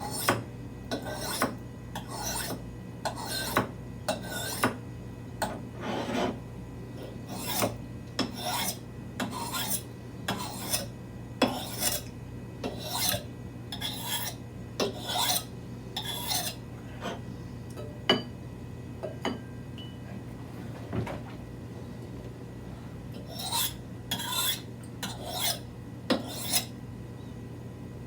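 Japanese-steel paring knife being stroked across an oiled sharpening stone: a rasping scrape about twice a second. The strokes stop for about six seconds past the middle, then a few more follow.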